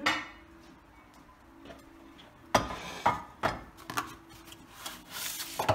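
Kitchen items being picked up and set down on a countertop, a glass baking dish among them: a few sharp knocks and clinks between about two and a half and four seconds in, then a rustling near the end.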